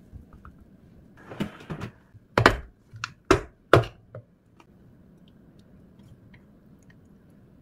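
A glass food-storage container's clip-lock lid being unlatched: a short rustle, then five sharp plastic clacks over about two seconds as the flaps snap open.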